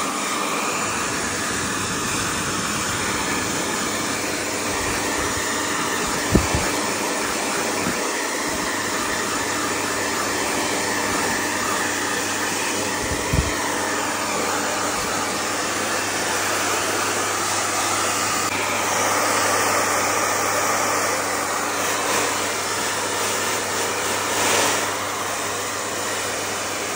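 Electric blow dryer running steadily, a constant whooshing rush of air over a motor hum, drying a freshly bathed dog's wet coat. A couple of short low thumps come about six and thirteen seconds in.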